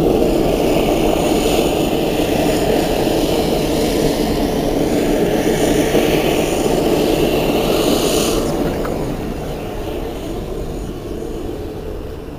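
Loud steady engine noise with a hiss over it; the hiss drops out about eight seconds in and the sound then slowly fades.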